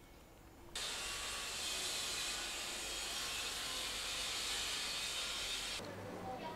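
A steady rushing hiss that starts abruptly about a second in and cuts off suddenly near the end, giving way to a low steady hum.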